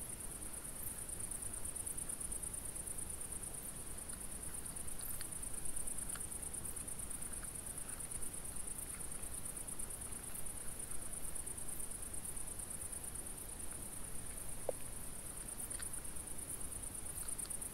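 Insects chirring steadily, a continuous high-pitched, rapidly pulsing buzz, with a few faint scattered clicks.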